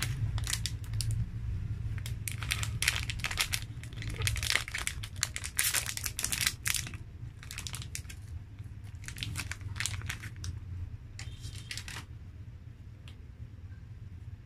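Foil-lined plastic wrapper of a Fudgee Barr cake bar crinkling and tearing as it is pulled open by hand, in dense bursts of crackle that thin out and go quieter near the end. A steady low hum runs underneath.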